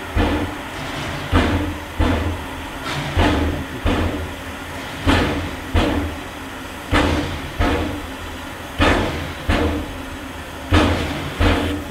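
Narrow-gauge steam locomotive working under load, its exhaust chuffing in an uneven rhythm, a little over one beat a second and often in pairs, over a low rumble.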